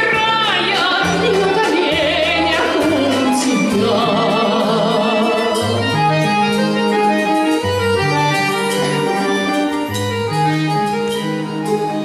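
A woman sings with a wide vibrato over a Russian folk-instrument orchestra of domras and balalaikas. Her phrase ends about four seconds in, and the orchestra plays on alone in a steady, plucked instrumental passage.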